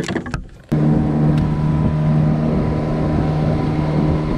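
Outboard motor running steadily at constant throttle with the boat under way, starting abruptly under a second in, with some wind on the microphone.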